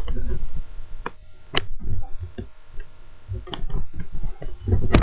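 Handling noise from a camera being carried and moved about: a low rumble with four sharp clicks or knocks spread across a few seconds.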